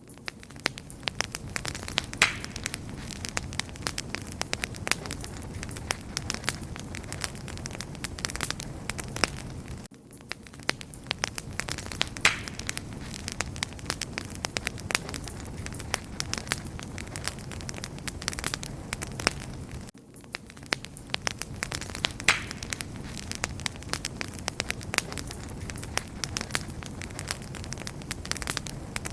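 Wood fire crackling steadily, with a low rumble of flames under frequent sharp snaps and pops. The same ten-second stretch repeats, with a brief drop in level at each join.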